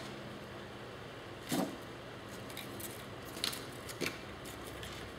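A few light clinks and rattles of small metal typewriter parts being handled, over the steady hum of a room fan.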